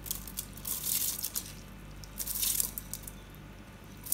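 Wet, freshly washed rice being poured and scraped into a cooking pot, a grainy wet rustle in a few short bursts.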